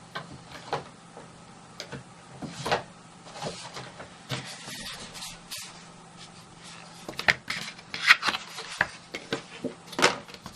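Craft supplies being handled on a worktable: a foam stamping mat taken out and set down and a photopolymer stamp moved into place, giving scattered light clicks, taps and rubbing that grow busier in the last few seconds.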